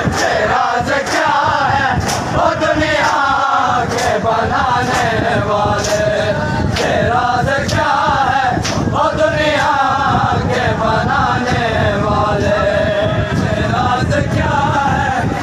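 A group of men chanting a noha (Shia lament for Imam Husayn) together, with sharp slaps of hands on chests (matam) keeping a steady beat, about one a second.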